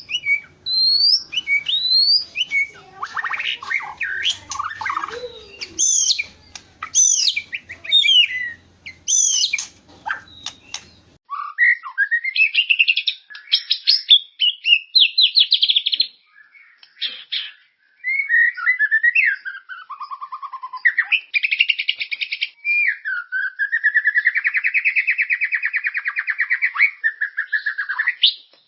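White-rumped shama (murai batu) singing continuously: varied clear whistles and sliding notes, then rapid trills and a long buzzy warbling phrase about three quarters of the way through. It is a lure recording meant to set caged birds singing.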